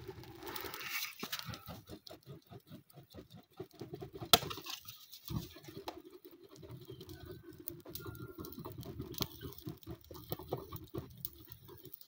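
A plastic plate fanned rapidly over a smoking charcoal stove to get the fire going: quick rhythmic puffs of air, several a second. A single sharp click comes a little over four seconds in.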